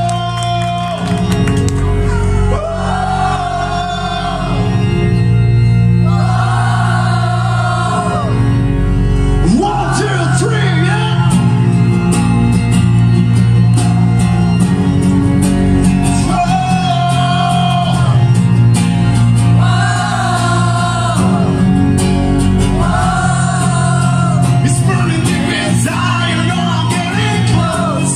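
Live song performance with amplified singing: a voice sings drawn-out phrases every few seconds over steady, held accompaniment chords.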